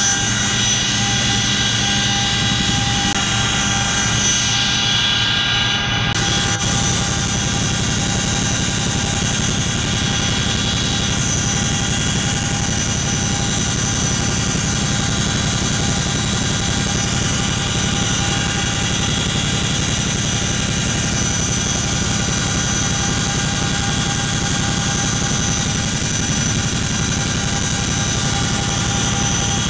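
Inside the cabin of a CH-47 Chinook tandem-rotor helicopter in flight: the steady whine of its twin turboshaft engines over a dense, low rotor beat.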